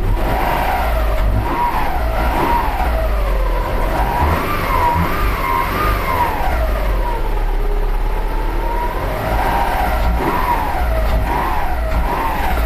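Subaru Forester engine idling, with a whistling tone that wavers slowly up and down in pitch over the steady engine hum. It comes from around the timing belt after a belt and idler replacement; the owners hear it as air chuffing and suspect the engine is short of air through a clogged air filter.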